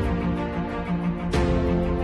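Background music: sustained chords with a steady low beat, changing chord about a second and a half in.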